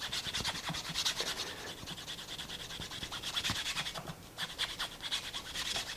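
Sandpaper rubbed by hand over the edge of an aluminium bronze coin ring: quick back-and-forth scratching strokes, with a short break about four seconds in.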